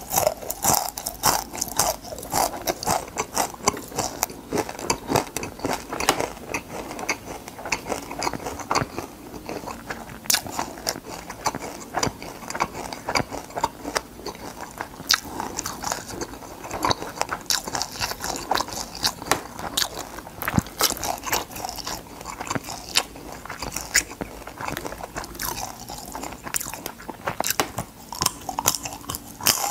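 A person chewing crispy deep-fried small crabs: dense, irregular crunching and crackling of the fried shells.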